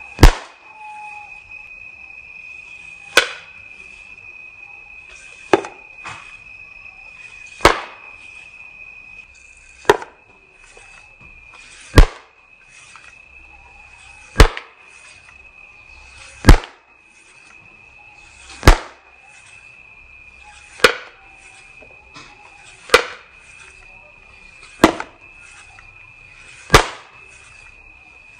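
Homemade bamboo pop gun firing fruit pellets (Litsea cubeba berries): a sharp pop about every two seconds, some thirteen shots as the plunger rod is pushed home again and again.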